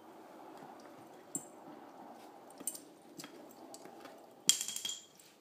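Pembroke Welsh Corgi puppy gnawing on an elk antler: scattered sharp clicks of teeth on antler, then a louder clattering clink with a brief ring about four and a half seconds in.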